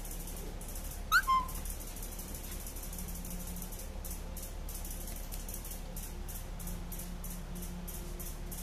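Chihuahua puppy giving one short, high squeak about a second in, rising in pitch and then dropping. A steady low hum and hiss lie underneath.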